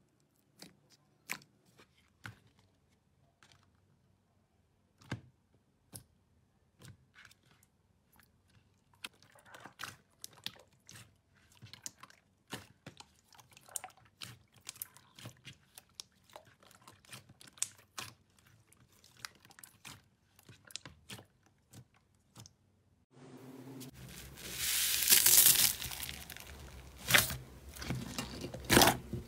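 Slime being squeezed and pressed by hands close to the microphone, giving sticky clicks, pops and crackles. They come sparsely at first, then turn into denser, much louder crunchy crackling about three-quarters of the way through.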